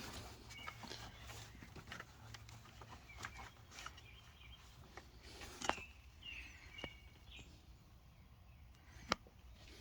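Quiet background with faint, scattered clicks and taps, the two sharpest about halfway through and near the end, and a few faint bird chirps.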